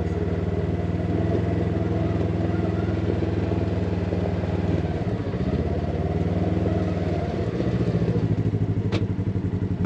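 Polaris RZR side-by-side's engine running steadily. Its note drops about halfway through, and near the end it turns into an even, pulsing low rumble as it slows.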